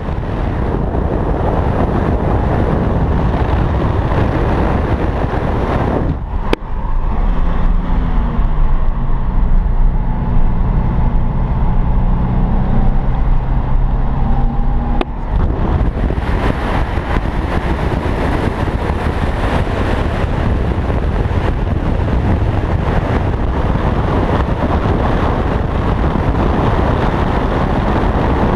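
Nissan 370Z's 3.7-litre V6 on the move, at first heard outside the car as a rush of wind and road noise on the microphone. From about six seconds in it is heard from inside the cabin, where the engine note comes through clearly, rising and falling in pitch. About fifteen seconds in it switches back to the outside wind and road rush.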